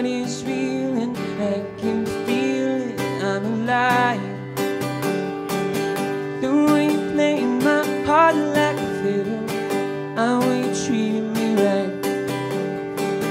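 A man singing a melody over a steadily strummed acoustic guitar, solo singer-songwriter style.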